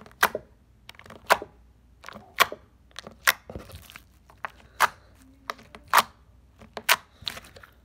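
Fingers poking a very sticky, jiggly slime, each press and pull-away giving a sharp sticky pop: about eight, roughly one a second.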